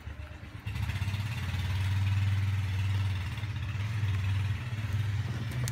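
An engine running at idle: a low hum with a rapid, even pulse, which comes up sharply about a second in and then holds steady.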